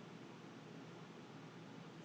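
Near silence: a faint, steady hiss of room tone with no distinct sounds.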